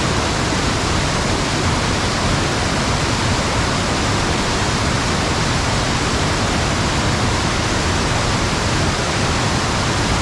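Waterfall: falling water rushing steadily and loudly, an even hiss with no break.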